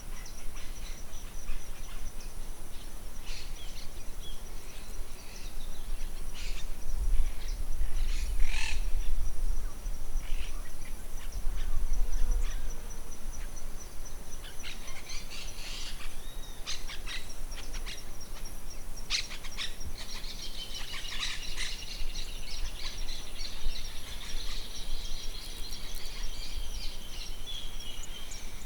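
Wild birds chirping and calling, with a longer warbling song phrase in the second half, over a steady high-pitched insect drone. Gusts of wind rumble on the microphone a few times.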